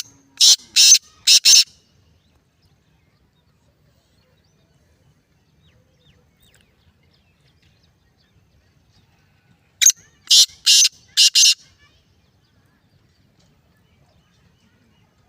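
Black francolin calling: two loud phrases of several quick notes each, about ten seconds apart.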